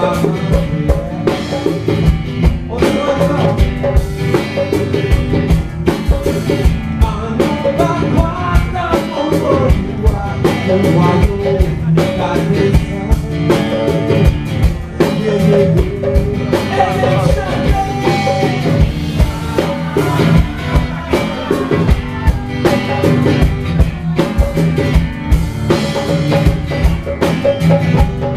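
Live konpa band music: a singer over drum kit and guitar, with a steady dance beat.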